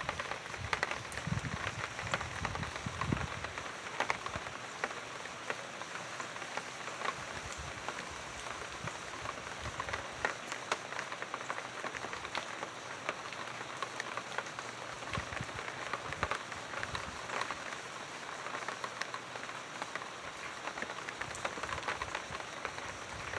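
Steady rain falling, with many individual drops striking close by as sharp ticks. A few low rumbles come in the first three seconds.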